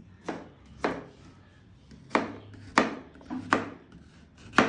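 Kitchen knife slicing rose apples into rounds on a cutting board: six sharp chops of the blade through the crisp fruit onto the board, at uneven intervals, the last the loudest.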